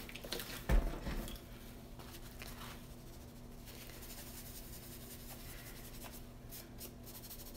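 A small pad rubbing over a card, wiping alcohol ink off its white area in faint, scratchy strokes. A soft knock about a second in is the loudest sound.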